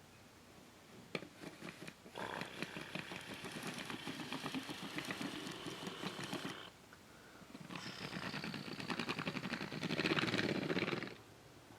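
Toy construction vehicle running with a rapid, rattling engine-like sound, in two stretches of about four and three seconds with a short pause between; the second is louder near its end.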